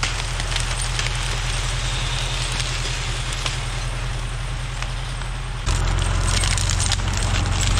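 John Deere 1640 tractor's diesel engine running steadily, jumping suddenly louder and closer about two-thirds of the way through.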